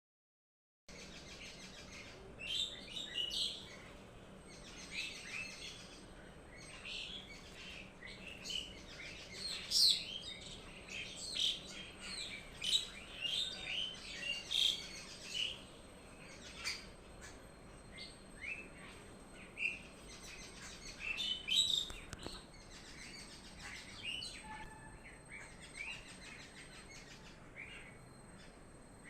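Garden birds chirping: many short, high chirps in quick succession, often overlapping, thinning out in the second half.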